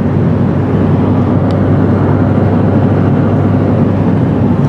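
Steady road and engine rumble of a moving car, heard from inside the vehicle while it drives along a highway.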